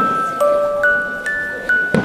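Music: a melody of bell-like struck notes from a glockenspiel-type mallet instrument, each note ringing on until the next, about two notes a second.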